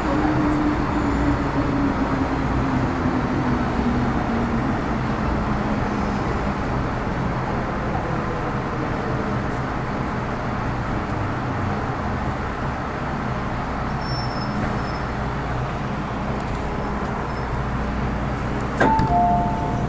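Interior of a Metro Cammell M-Train metro motor car on the move: a steady rumble of wheels on rail, with the traction motors' whine falling in pitch over the first half as the train slows. Near the end there is a knock, then a two-note electronic chime.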